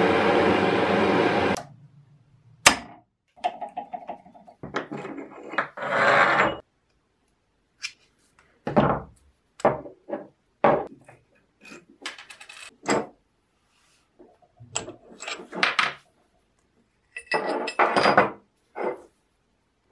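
A gas torch hissing steadily, cut off about a second and a half in. Then irregular clicks, clinks and knocks as the steel parts of an old electric jack hammer are worked apart by hand and set down on a wooden bench, with a sharp click soon after the hiss stops.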